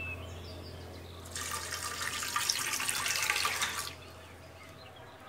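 Water poured into an aluminium pressure cooker onto dry red lentils, splashing for about two and a half seconds from just over a second in, then stopping suddenly.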